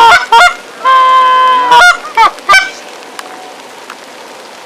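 Canada goose honking: a short honk, a long drawn-out honk about a second in, then two quick honks, after which the calling stops a little past halfway.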